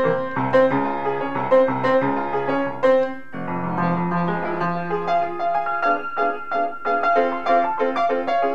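Cable-Nelson upright piano played by hand: a brisk passage of many quick notes and chords over a bass line. A little over three seconds in the bass breaks off and a low note is held while the upper notes carry on.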